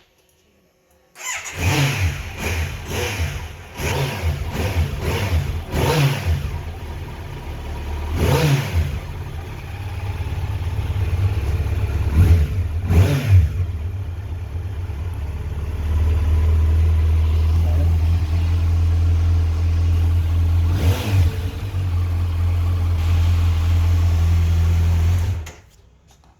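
Kawasaki Z900's inline-four engine through its stock exhaust, starting up after a moment of silence and revved in a series of short throttle blips. It then runs at a steady, held higher speed and cuts off suddenly near the end.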